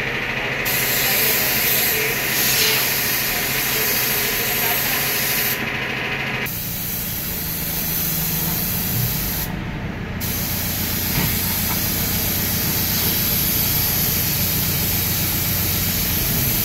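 Compressed-air spray gun with a top cup hissing steadily as it atomises diesel over a backhoe loader's body. The hiss drops out briefly two or three times, over a steady low hum.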